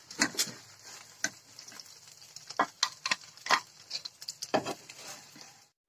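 A steel spoon scraping and clinking against a kadai as fried paneer cubes are scooped out of hot oil, over a steady sizzle. The sound cuts off suddenly near the end.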